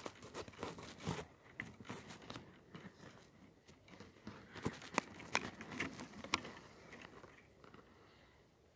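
Irregular crunching and crackling clicks, with a few sharper ones around the middle, thinning out and getting quieter near the end.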